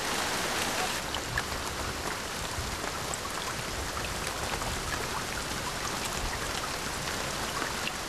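Heavy rain falling steadily: a dense, even hiss with scattered ticks of drops striking surfaces.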